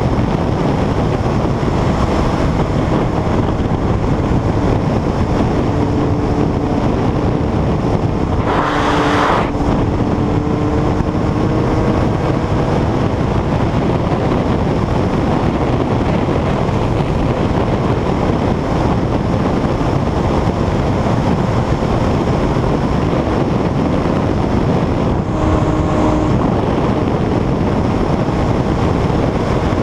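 Honda CBR900RR FireBlade's inline-four engine running at road speed, mostly buried under heavy wind rush on the microphone. The engine note rises gently for a few seconds, and there is a short whoosh of noise about nine seconds in.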